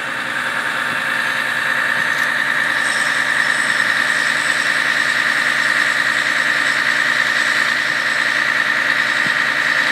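Aerial fire truck's engine running steadily with a high steady whine, growing a little louder over the first couple of seconds.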